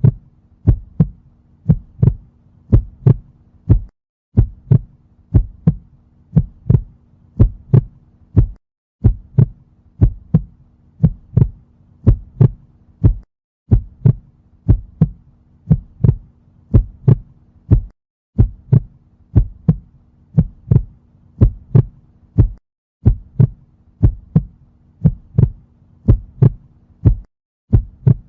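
Heartbeat sound effect: a steady lub-dub, each beat a double thump, about one beat a second. A faint low hum runs underneath and drops out briefly every four to five seconds, where the loop restarts.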